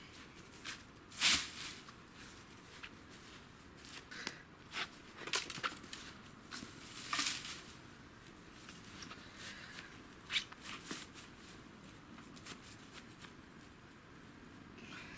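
Dry sticks and twigs being handled and piled, with rustling and scattered crackles and snaps; the sharpest snaps come about a second in and again around seven and ten seconds.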